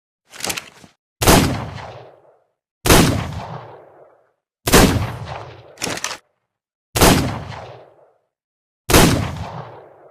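Revolver sound effect: five gunshots, roughly two seconds apart, each with a fading echo tail. Shorter, quieter mechanical clicks come just before the first shot and again between the third and fourth.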